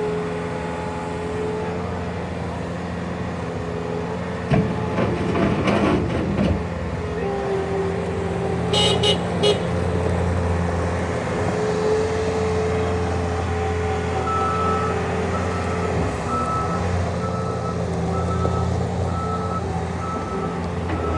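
Bobcat S76 skid steer loader's 74 hp turbo diesel engine running as the machine is driven, with a burst of metallic rattling about five seconds in and a few sharp clicks near nine seconds. From about fourteen seconds its backup alarm beeps at an even pace, the sign that the loader is reversing.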